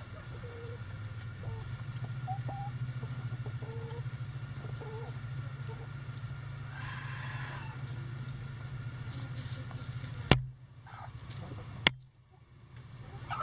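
Backyard hens clucking softly and intermittently while they scratch and forage, over a steady low hum. A brief harsh noise comes about midway, and two sharp clicks sound near the end.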